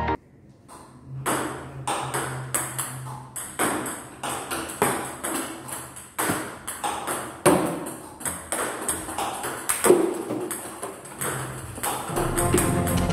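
Table tennis ball repeatedly clicking off a paddle and the table in a quick, irregular run of sharp ticks, two or three a second. Music comes in near the end.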